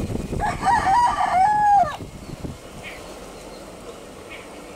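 A rooster crows once: a loud call of about one and a half seconds that steps in pitch and falls away at the end. It sounds over the low rumble of an approaching EMU electric local train.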